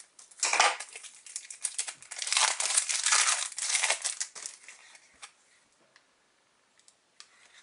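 Foil wrapper of a trading-card booster pack crinkling as it is handled, in a short stretch about half a second in and a longer one from about two to four and a half seconds in, then a few faint ticks.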